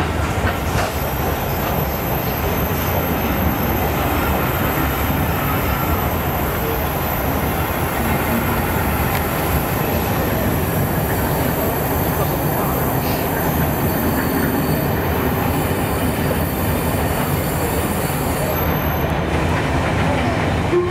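Railway passenger coaches rolling past along a platform, a steady rumble of wheels on rail. A thin high wheel squeal rides above it and dies away near the end.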